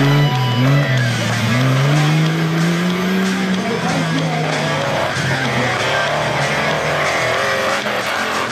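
Off-road buggy engine revving, its pitch climbing over the first few seconds, mixed with rock music laid over it.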